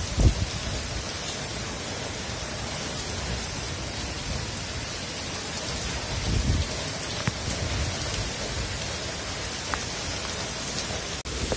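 Steady cyclone rain hissing down, with low gusts of wind rumbling on the microphone near the start and again about halfway through.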